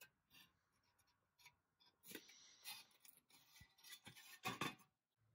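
Faint handling noise from a rusty pressed-steel toy truck bed being turned over in the hands: light scrapes, rubs and small metal clicks, busier and louder in the second half.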